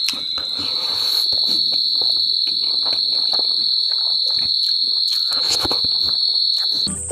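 A steady high-pitched trill of insects, with irregular chewing and mouth clicks from someone eating noisily over it. The trill cuts off abruptly at the very end.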